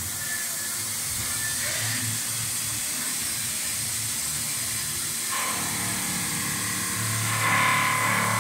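Microcut VMCF 760 vertical machining center running, with a steady hiss of coolant spraying over the vise and workpiece and a low pulsing hum. About five seconds in the sound changes, and near the end steady high-pitched tones come in as the end mill reaches the workpiece.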